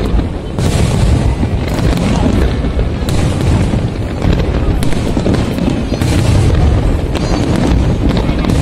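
Fireworks display: aerial shells bursting one after another in a loud, dense run of bangs over a continuous low rumble, with no pauses between them.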